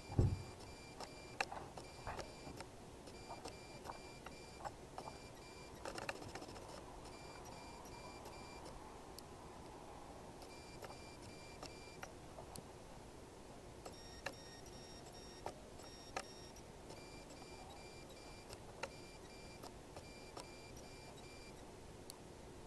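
Pages of a softcover book being turned and flipped by gloved hands: soft paper rustles and light page flaps, with a low thump at the very start as the book is handled. A faint, high-pitched beeping repeats in the background, a run of beeps at a time with pauses between.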